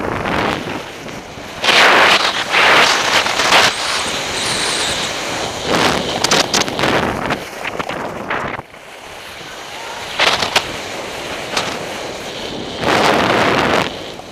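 Wind rushing over the microphone of a camera on someone riding down a groomed ski piste, swelling in several loud stretches of a second or two as edges scrape across the hard-packed snow in the turns.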